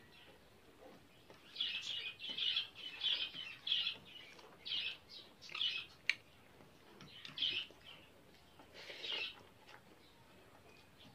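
Eating sounds of rice and fish curry eaten by hand from a steel plate: a run of short bursts, about one every half second to a second, with one sharp click about six seconds in.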